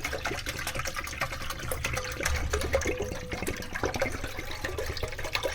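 Water being poured into a vessel of lemon water: steady splashing with short gurgling blips.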